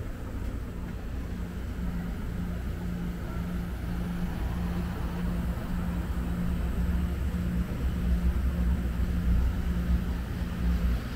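A motor vehicle's engine running close by: a low rumble that grows louder about halfway through, with a low hum pulsing about twice a second.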